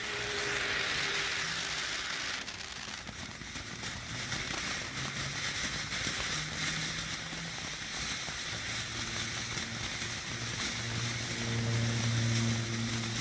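American Forever ground fountain firework from Sky Bacon Fireworks burning, a steady hiss of spraying sparks. Its sound shifts abruptly about two seconds in as the fountain changes to another effect.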